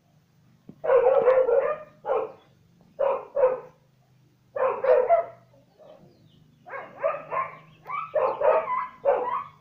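A dog barking repeatedly, single barks and quick runs of two or three, with short pauses between.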